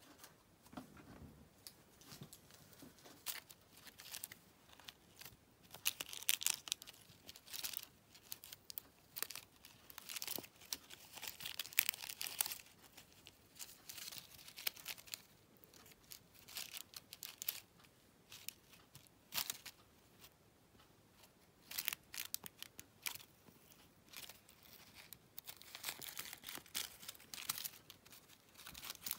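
A metallic foil crinkle ball toy crinkling in irregular bursts as a kitten bats, grabs and bites at it.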